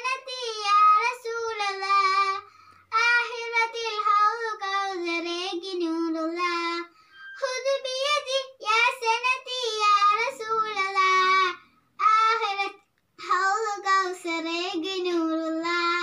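A young girl singing a Malayalam Islamic devotional song solo and unaccompanied, in long ornamented phrases with wavering pitch, broken by short pauses for breath about every four to five seconds.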